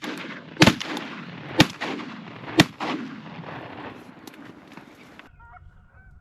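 Shotgun blasts, three shots about a second apart, each followed by a rolling echo that fades out.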